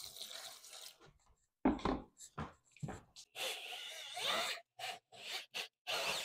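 A paddle mixer in a corded drill churning wet setting-type joint compound (hot mud) in a plastic bucket, in short irregular spurts, with water poured in at the start. There is a heavier thud about two seconds in.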